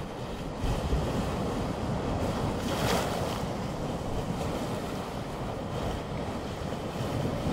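Small sea waves washing and fizzing over a flat rock shelf, with a louder breaking wash about three seconds in. Wind buffets the microphone underneath.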